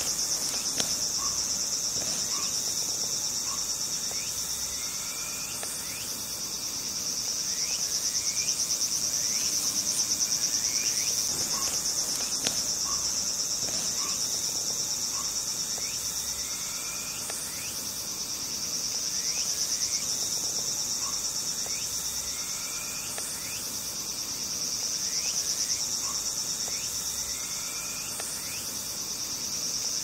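A dense insect chorus: a steady high-pitched buzz that swells and fades every several seconds, with faint short rising chirps scattered through it.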